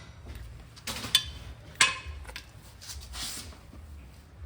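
A few sharp metallic clinks of hand tools against steel axle parts, the loudest about a second in and near two seconds in, followed by a brief hiss a little past three seconds.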